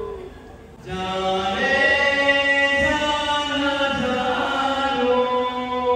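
A man singing into a handheld microphone, amplified, in long drawn-out notes. The voice drops out briefly at the start and comes back about a second in.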